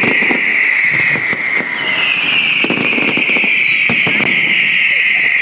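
Display fireworks shrieking with a loud, shrill whistle that slowly falls in pitch and starts afresh under a second and a half in. Several sharp bangs and pops sound through it.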